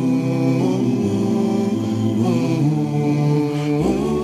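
Slow vocal music: voices singing long held notes that glide from one pitch to the next.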